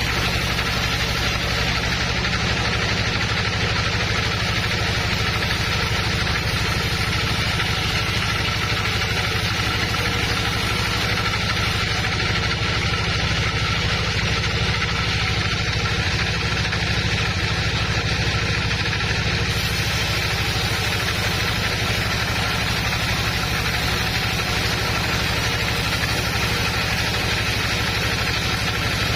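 Woodworking machinery running steadily: a constant low motor hum under an even hiss, with no change in pitch or level.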